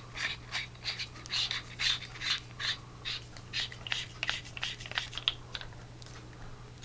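A metal flashlight being put back together by hand: a string of short clicks and scrapes from its cells and threaded parts being handled and screwed tight, dying away about five and a half seconds in. A steady low hum lies underneath.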